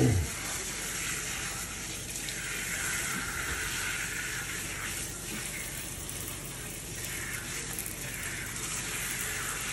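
Kitchen sink faucet running, its spray of water falling steadily onto a wet capuchin monkey and into the sink with an even hiss.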